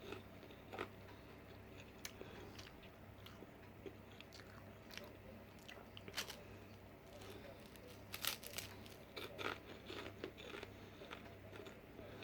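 Faint crunching of puffed rice cakes being bitten and chewed, with scattered crisp crunches every second or so.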